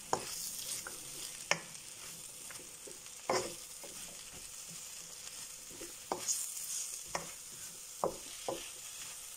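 Chopped vegetables and beef frying in a pan with a steady sizzle, stirred by a utensil that gives a few sharp clicks and scrapes against the pan.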